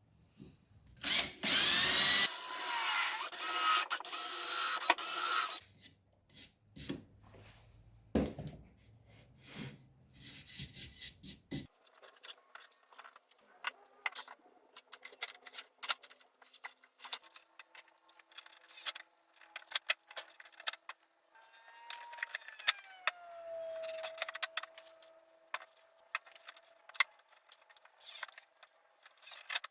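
A power drill runs hard for about four seconds near the start, followed by scattered clicks and knocks of small parts being handled. Later comes a second, quieter run whose pitch slides down and then holds steady.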